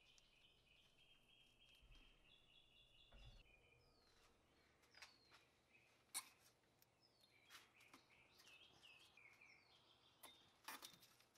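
Near silence, with faint bird chirps in the background, repeated short notes, and a few faint clicks.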